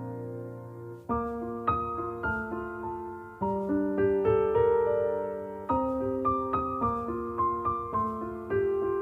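Gentle solo piano background music: single notes struck one after another in a slow melody, each ringing and fading, after a held chord dies away in the first second.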